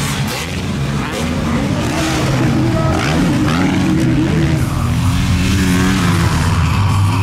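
Several motocross bikes racing, their engines revving hard. The overlapping engine notes rise and fall as riders throttle up and back off.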